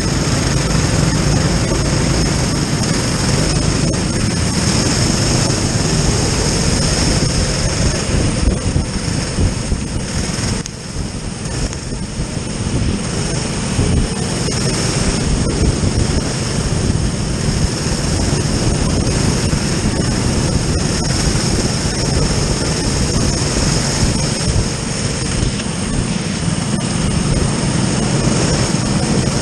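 Onboard sound of a racing kart's engine running hard among other karts, under a steady rush of noise. The level dips briefly about ten seconds in, then picks up again.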